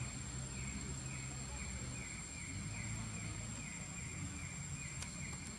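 Outdoor ambience: a steady low hum under a high, short chirp that repeats evenly about twice a second.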